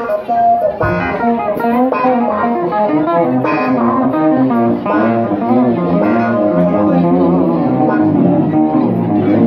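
Live band playing: electric guitar lines over a bass guitar.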